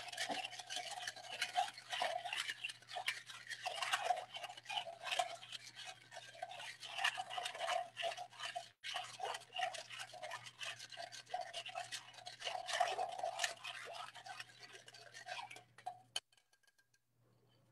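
Bar spoon stirring ice fast in a metal Boston shaker tin: a quick, continuous rattle and clink of ice against steel, stopping near the end with one sharp click.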